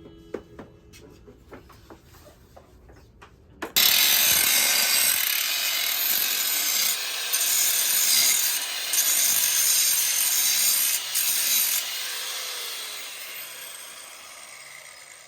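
A power tool starts abruptly about four seconds in and runs loud and steady with a harsh hiss, with a few brief breaks. It then winds down gradually over the last few seconds.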